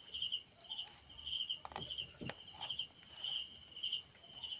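Crickets chirping in an even rhythm of about two chirps a second over a steady high insect hiss, with two soft knocks of a metal spoon against the tray a little under two seconds in.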